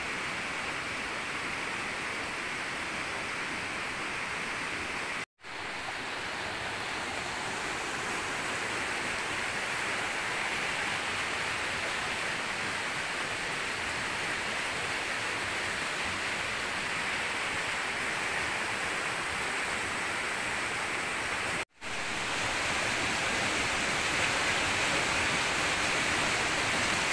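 Steady rushing of water from rain and running water in the forest, broken twice by a sudden brief dropout, about five seconds in and near twenty-two seconds, each a little louder after.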